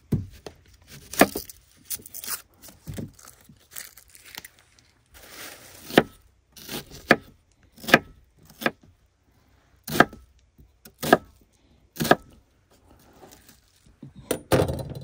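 Kitchen knife cutting an onion on a wooden cutting board: separate sharp knocks of the blade on the board, about one a second, with soft rustling between them.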